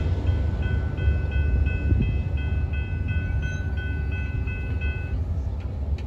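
Rebuilt Union Pacific C44ACM diesel locomotives on a test run, with a deep, steady rumble. Over it a bell rings in quick, even strokes, about three a second, and stops about five seconds in.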